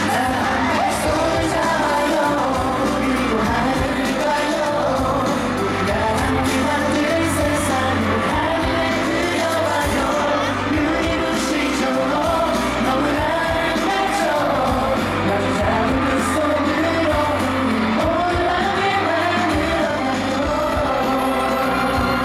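K-pop song performed live with a singer's voice over a steady beat and bass, loud through a concert sound system.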